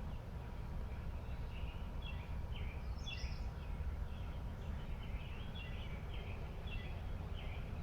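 Small birds chirping repeatedly, short high notes scattered throughout, over a steady low background rumble.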